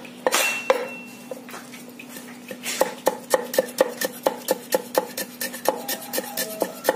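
Cleaver chopping garlic on a chopping block: a few separate strokes at first, then a quick, even run of chops at about five a second from about three seconds in.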